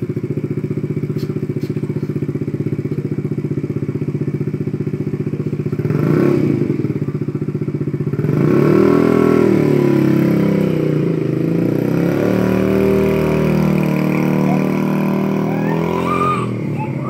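Iceberg Maddog 50cc scooter's single-cylinder four-stroke engine idling steadily, briefly revved about six seconds in, then revving up and down in pitch as the scooter pulls away and rides off.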